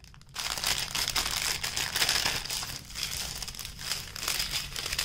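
Clear plastic packaging bags crinkling as they are handled and pulled open. It is a dense run of irregular crackly rustling that starts about half a second in.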